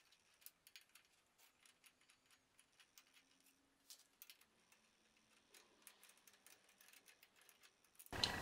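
Near silence with faint, scattered metal ticks and clicks as a 6 mm Allen key turns out the mounting bolts of a scooter's Brembo rear brake caliper. A louder steady rush of noise comes in right at the end.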